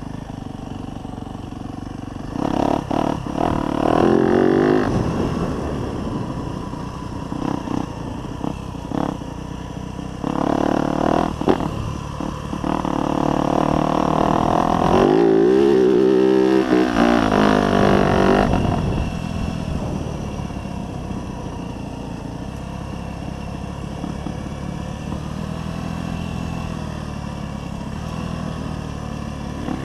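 Close onboard sound of a dirt bike's engine being ridden hard, revving up and backing off in bursts, loudest and highest in the middle before settling to steadier, lower running near the end.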